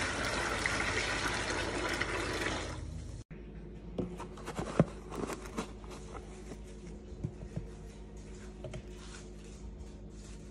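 Hot water pouring steadily from a pan into a spin-mop bucket. The pour stops about three seconds in. Then a plastic scoop scrapes through a box of granular powder, with a few sharp clicks and knocks.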